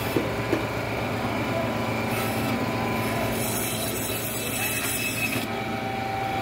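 Blade scraping and cutting through a large grass carp, a continuous rasping sound that turns harsher and brighter for a couple of seconds in the middle, with two light knocks just after it starts. Steady market background noise runs underneath.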